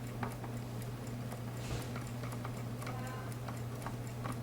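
Wind-up alarm clock's clockwork movement ticking steadily, over a low steady hum.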